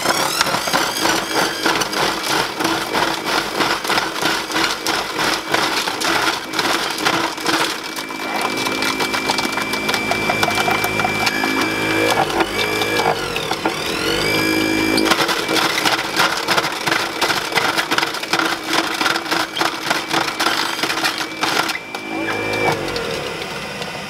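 Goodnature M-1 cold-press juicer's grinder running, shredding ginger and lemon with a dense, fast rattling clatter. About a third of the way in, a steady whine with shifting pitch comes through for several seconds, then the clatter takes over again.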